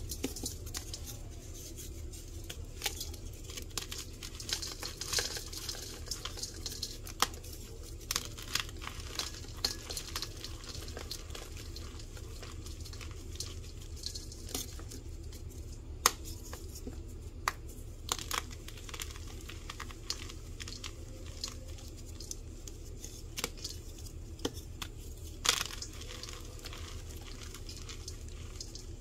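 Dyed powder blocks being crushed and crumbled by hand in a metal bowl: an irregular run of dry crunching and crackling, the blocks crunchy outside and soft in the middle. The sharpest snaps come about sixteen and twenty-five seconds in, over a steady low hum.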